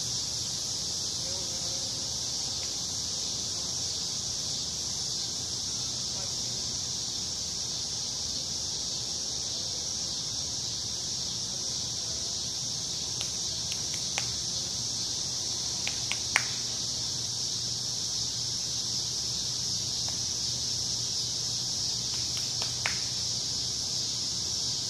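A steady, high insect chorus drones without a break, over a low steady hum, with a few sharp clicks: two about halfway through and one near the end.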